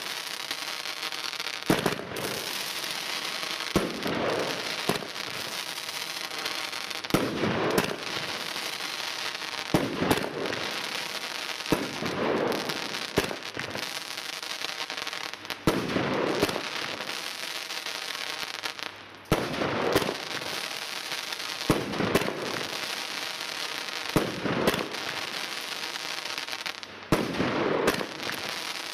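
20-shot fireworks battery firing: sharp bangs from the shots and bursts every second or two, with continuous crackling between them from the crackling-star rises and the bouquets.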